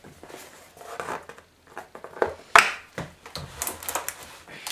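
Cardboard packaging of a computer speaker set being handled as the box is opened and its contents lifted out: rustling, scraping and light knocks, with one loud, sharp scrape about two and a half seconds in.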